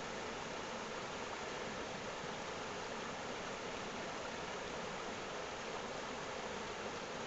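Running water rushing steadily in an even hiss, without surges or separate splashes.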